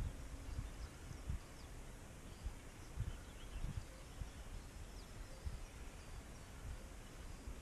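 Wind buffeting the microphone in irregular low gusts, with faint bird chirps now and then.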